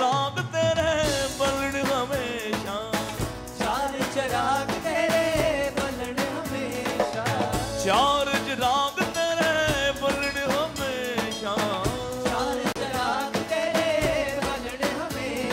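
A man singing a Bollywood pop song live into a microphone, backed by a live band with guitars and keyboard over a steady beat.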